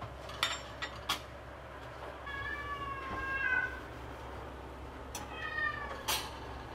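A domestic cat meowing twice, one long call followed by a shorter one. A few sharp clicks and knocks come near the start and near the end as kitchen stove and sink parts are handled and wiped.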